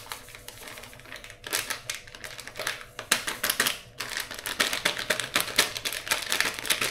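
Plastic packet of instant pudding mix crinkling as it is squeezed and shaken to empty the powder out, a fast irregular crackle that grows busier about a second and a half in.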